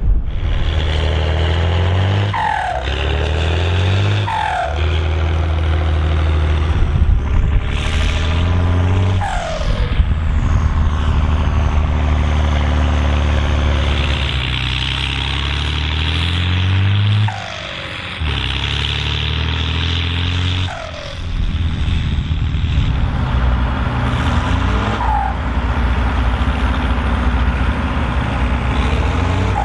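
Turbocharged Volvo BM tractor diesel engine being revved over and over, about six rises in revs, each followed by a short falling turbo whistle as the revs drop back.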